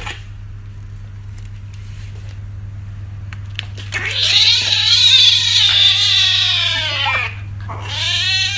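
Kitten meowing: one long, loud meow whose pitch rises and then falls, then a second shorter meow near the end, over a steady low hum.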